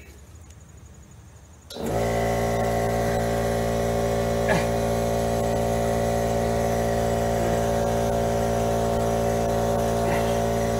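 A machine with a motor starts abruptly about two seconds in and runs at a steady, unchanging hum, with a brief click partway through.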